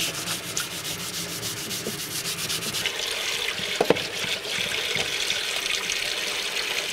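Scotch-Brite pad scrubbing a four-jaw lathe chuck in a sink under a running tap: quick, even scrubbing strokes over the steady rush of tap water. A brief metallic clink about four seconds in.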